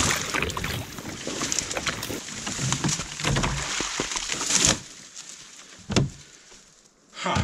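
Dry cattail reeds rustling and thin shore ice crunching and splashing as a raft is dragged out of the broken ice, busy for the first four and a half seconds. Then it is quieter, with a sharp knock about six seconds in and another near the end.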